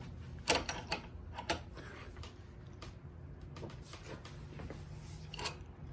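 A handful of light, scattered clicks and knocks from metal jack parts and tools being handled on a workbench, over a quiet room.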